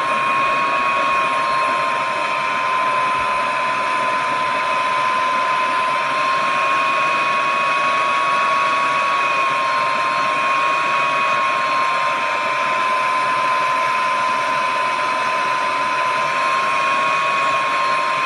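Board preheater running with its fan blowing hot air: a steady rush with a high whine. It is heating a BGA CPU chip so the flux melts over its solder balls.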